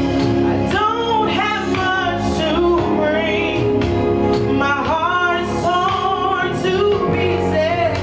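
A singer performing live, the voice sliding and wavering with vibrato over a sustained instrumental accompaniment.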